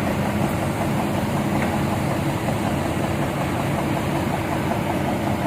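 Heavy excavator engine running steadily at an even pitch.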